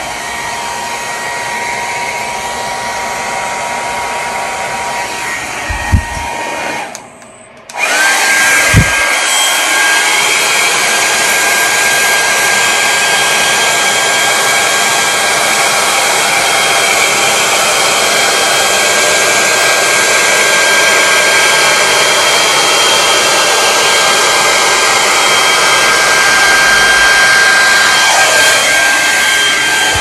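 Handheld blow dryer blowing wet acrylic paint across a canvas in a Dutch pour, a steady rushing airflow with a thin motor whine. About seven seconds in it stops for about a second, with a click on either side. It then runs again louder, with a higher whine.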